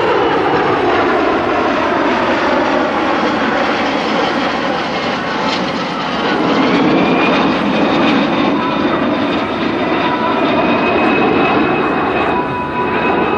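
Kawasaki C-1 transport's two Pratt & Whitney JT8D turbofan engines running loud as the jet flies past overhead. Whining tones in the engine noise slide down in pitch over the first few seconds, then climb about halfway through and hold steady.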